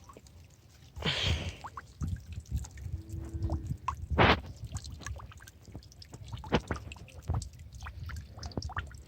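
Irregular small splashes, drips and wet squelches of water being disturbed, with a louder splash about a second in and a sharp slap just past four seconds.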